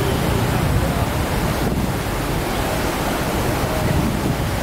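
Wind buffeting the camera microphone: a steady rushing noise, heaviest in the low end, with faint voices of passers-by underneath.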